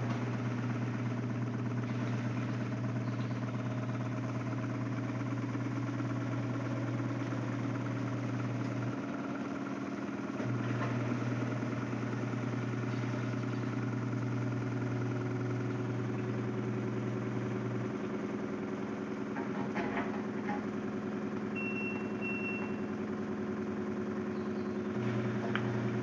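LG Prime front-loading washing machine spinning its drum in the spin cycle, a steady motor hum with the drum's rumble; the low hum drops out twice and comes back as the machine works at the spin with a load of jeans and coloured clothes that is not well balanced.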